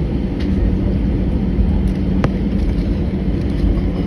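Airbus A319 cabin noise on the ground: a steady low rumble with a steady hum, and a single sharp click a little over two seconds in.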